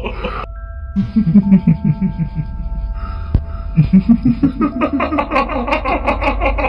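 Eerie horror sound effect: steady droning tones under a choppy, laugh-like pitched voice, the staged cackle of a kuntilanak ghost. The pulses step down in pitch around a second in, and again near the middle, and grow denser toward the end.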